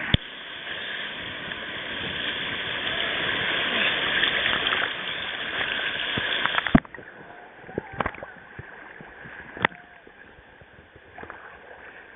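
Rushing whitewater in river rapids, loud for about seven seconds, then cutting off abruptly with a sharp click. After that the water is much quieter, broken by a few sharp knocks.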